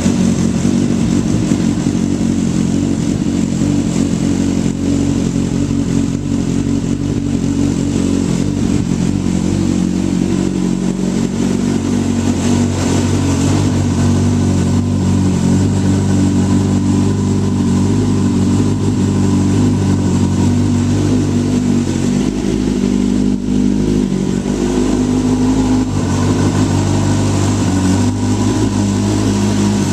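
2008 Kawasaki ZX-10R's inline-four engine running at a steady speed, with only small shifts in pitch.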